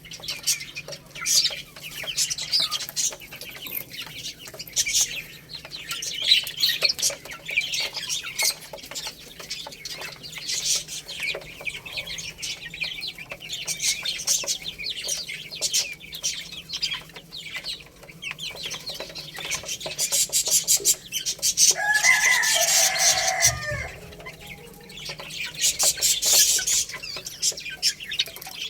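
Baby chicks peeping continuously, many short high-pitched calls overlapping. About 22 seconds in comes one lower, louder call lasting about a second and a half.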